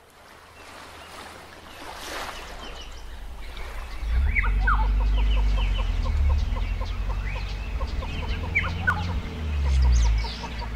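Outdoor ambience fading in: birds calling with short rising chirps and quick clucking ticks, over a low rumble that starts about four seconds in and swells near the end.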